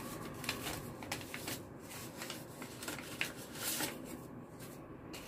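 Paper rustling and crinkling in a run of short crackles as a red paper lai see envelope is handled and opened and a banknote is pulled out of it.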